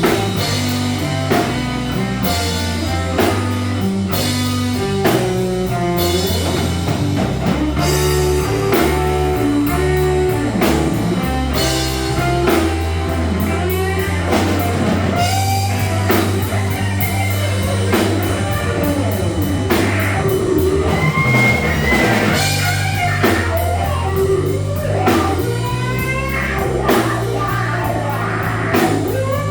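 Live electric blues band playing a slow blues: electric guitar playing lead lines with string bends over a walking bass line and drum kit.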